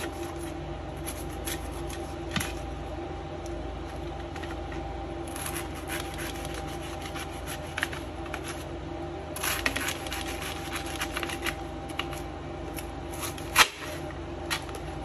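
Kitchen knife slicing through raw cabbage, with crisp crunching and crackling in irregular bursts and one sharper click near the end. A steady hum runs underneath.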